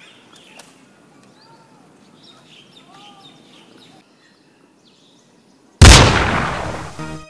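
Faint outdoor ambience with a few bird chirps, then a moment of silence, then a sudden loud blast near the end that dies away over about a second and a half.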